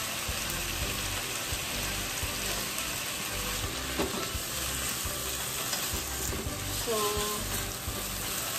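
Pieces of chicken thigh sizzling in a nonstick frying pan as they are stirred, with a single knock about four seconds in.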